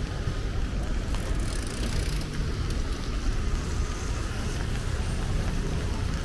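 Street ambience: traffic noise over a steady, unsteady low rumble typical of wind on the microphone.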